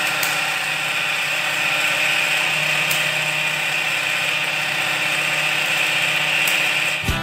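Van de Graaff generator's small 12 V DC motor and belt drive running with a steady whine, with a few faint ticks.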